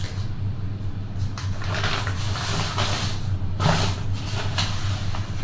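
A steady low hum with several short scraping or rustling noises, each lasting a fraction of a second.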